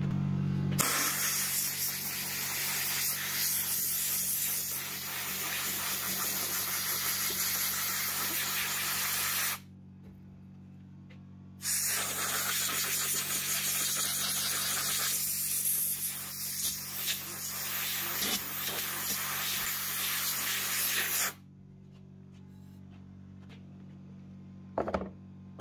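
Pressure-washer jet hissing as it blasts dust out of a Metabo vacuum's flat pleated filter, in two long bursts with a gap of about two seconds between them. A steady low hum runs underneath.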